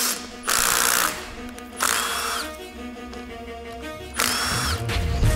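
Cordless drill-driver spinning in short spurts, each with a whine that winds up and down, backing out the bolts of the input-shaft bearing cover plate on a CD009 transmission, over background music.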